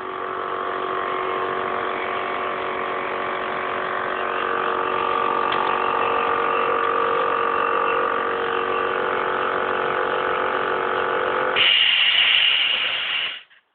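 Small electric air compressor running steadily, likely charging the home-made air rifle's air tank. A brighter hiss joins near the end, and then the motor stops abruptly.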